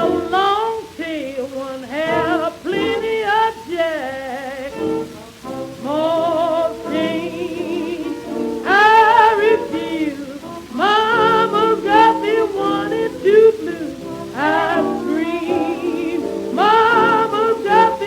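1926 acoustic-era blues record played from a 78 rpm disc: a small jazz band playing with wavering, bending melody lines, over the disc's faint surface hiss.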